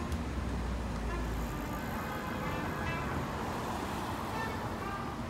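City street traffic: cars driving past close by, with engine and tyre noise and a deep low rumble that fades out about a second and a half in.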